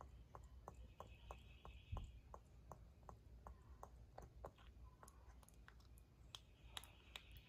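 Near silence: faint rapid clicking, about three clicks a second, with a soft thump about two seconds in.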